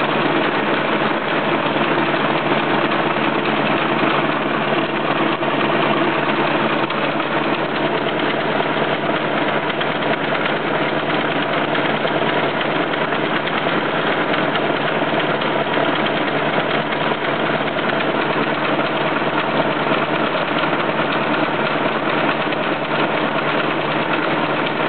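Old German Biernatzki milling machine with a carbide-insert face mill taking a 2 mm-deep cut in a steel workpiece: steady machining noise of the cutter and the geared drive.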